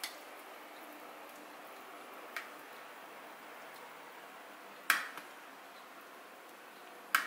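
A metal spoon clinking sharply against ceramic dishware four times, the last two loudest, as yogurt sauce is scooped from a bowl and spooned onto dumplings on a plate, over a faint steady background.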